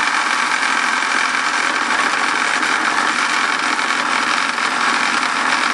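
Falk 1442/0 toy steam engine running steadily under live steam, its base rattling against the wooden table from the engine's vibration.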